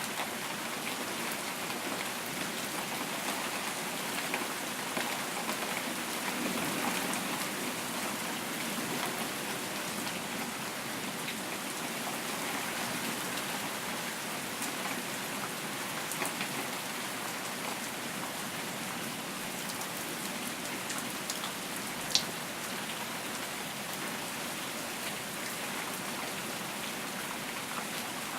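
Steady rain falling, an even hiss of drops with no thunder. One sharp click stands out about three-quarters of the way through.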